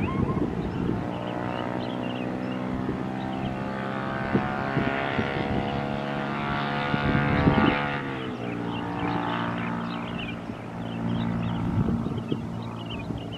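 Jet engines of a Boeing 737-500 (CFM56) running with a steady whine, whose pitch drops about eight seconds in as the engines wind down.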